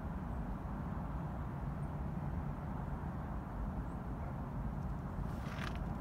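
Low, steady rumble of a vehicle engine running out of sight, with a brief hiss near the end.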